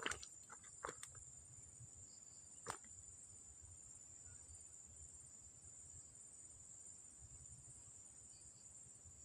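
Insects chirring in a steady, high-pitched drone. A few faint clicks sound in the first three seconds, the sharpest a little under three seconds in.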